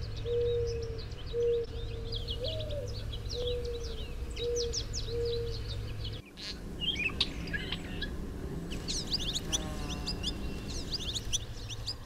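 Several wild songbirds singing and chirping over one another in quick high notes, with a lower call repeated in short notes through the first half; the mix of birds changes abruptly about halfway through.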